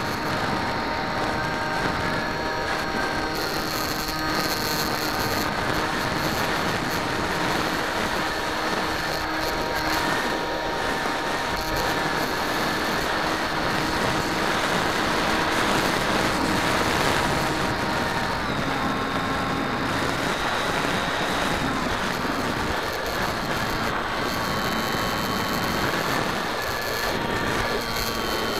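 Electric motor and propeller of a Bixler 2 RC foam plane whining steadily, heard from the onboard camera, with wind rushing over the microphone. The pitch drops about two-thirds of the way through and rises again near the end as the throttle changes.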